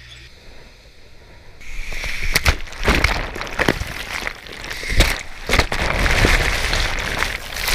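Seawater sloshing and churning around a submerged waterproof camera in rough surf. After about a second and a half it turns loud, with repeated sharp thuds of water hitting and moving the camera.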